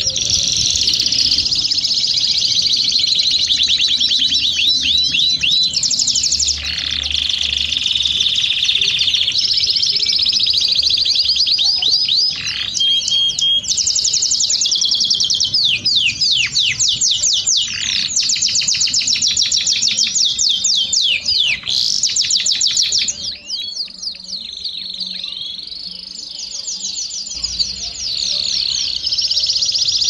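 Domestic canary singing a long, unbroken song of fast trills, one rapid run of repeated notes after another, switching to a new trill every second or two. It grows softer for a few seconds about three-quarters of the way through.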